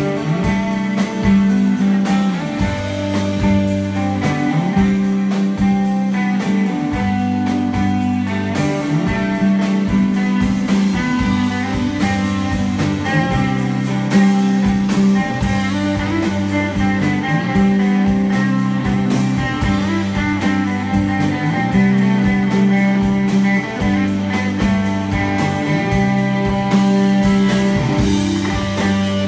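Rock band playing live in an instrumental stretch with no singing: electric guitars over bass guitar and a steady drum beat.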